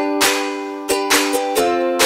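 Background music: a plucked string instrument strumming chords in a steady rhythm, several strokes a second.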